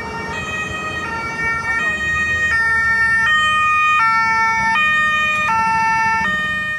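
Emergency vehicle's two-tone siren, switching back and forth between a higher and a lower pitch about every three-quarters of a second. It grows louder toward the middle and eases off near the end.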